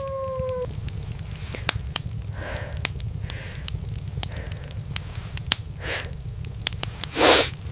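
Irregular sharp crackling pops over a steady low rumble. A short held tone opens it, and a loud breathy whoosh comes near the end.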